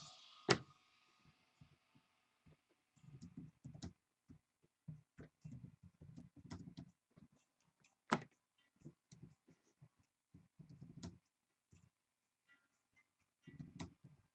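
Faint, irregular handling noise of card packs and cards on a table: soft dull thumps and scrapes broken by a few sharp clicks, the loudest about half a second in and just after eight seconds.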